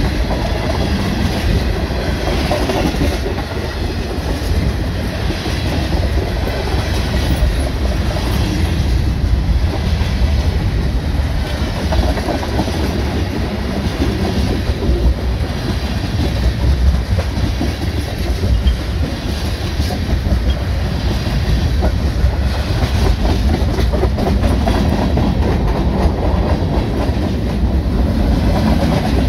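Freight train's tank cars and a bulkhead flatcar rolling past at speed: a steady, loud rumble of steel wheels on rail.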